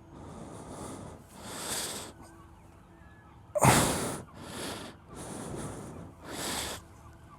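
A person breathing out hard several times in a row, the loudest a sudden sharp huff about three and a half seconds in.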